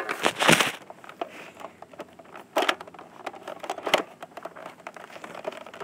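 Scuffling and rustling with a few scattered sharp knocks and clicks, from people moving about a small room; the scuffling is densest at the start.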